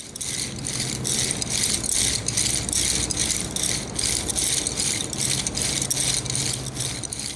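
Rhythmic rattling, about three to four shakes a second, steady throughout, over a faint low hum.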